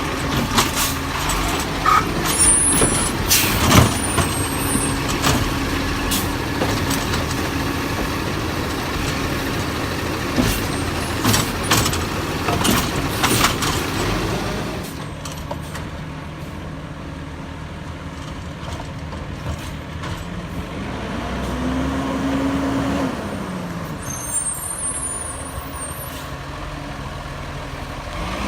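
Peterbilt 320 garbage truck with a Bridgeport Ranger packer body running, with many sharp knocks, clanks and hisses over the engine through the first half. It then goes quieter, and the engine note rises briefly near the end before dropping back.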